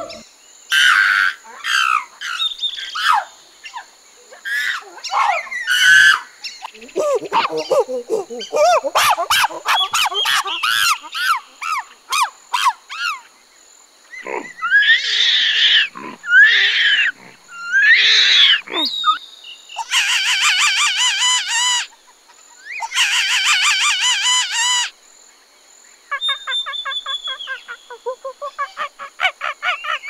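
Monkeys calling: a string of high screeches and chirping calls, many sliding up and down in pitch. In the second half come two runs of fast chattering calls, each about two seconds long.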